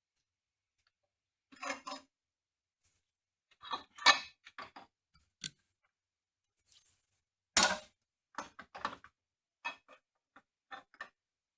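Metal tools and parts being handled, with scattered light clinks and taps and one sharp metallic knock about two thirds of the way through.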